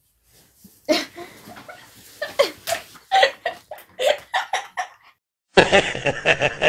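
Young people laughing in short bursts while roughhousing on a bed. About five and a half seconds in, this gives way to an old man laughing continuously, an inserted clip with a duller, narrower sound.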